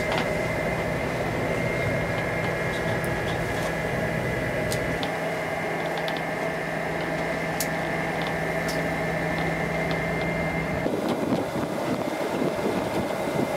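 Steady hum of a sailing yacht's auxiliary engine motoring through a calm sea. About eleven seconds in the hum cuts off and the rushing, splashing water of the bow wave along the hull takes over.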